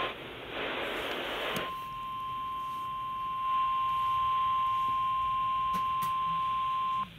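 Emergency alert attention tone over a radio: a single steady high beep near 1 kHz, the weather radio warning alarm tone. About half a second in it is broken by a burst of static lasting about a second, then it holds steady and cuts off sharply near the end.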